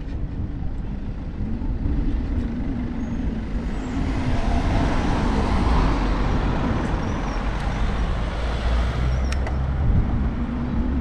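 Wind rumbling on the microphone of a camera riding on a moving bicycle, over road noise; a car goes by, louder through the middle.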